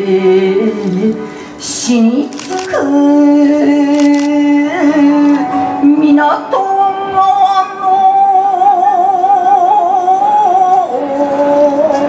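Music: a solo voice singing slow, long held notes with a wavering vibrato, the pitch stepping up or down between notes a few times.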